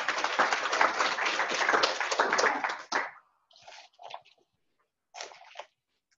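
Audience applauding for about three seconds, then stopping, followed by a few faint bumps and rustles.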